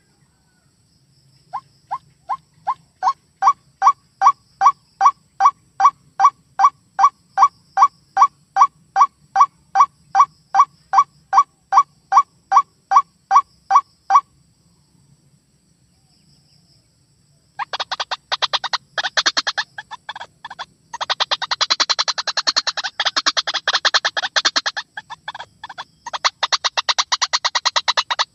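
White-breasted waterhen calling. First comes a long, even series of short calls, about two and a half a second, that grows louder over the first couple of seconds. It breaks off, and after a short pause comes a dense, rapid, harsh chattering chorus.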